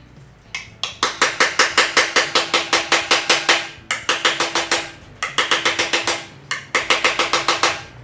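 Hammer planishing a steel sheet-metal patch for a motorcycle gas tank, backed by rags: rapid ringing metal blows, about six a second, in three runs with short pauses, stretching the patch into a dome.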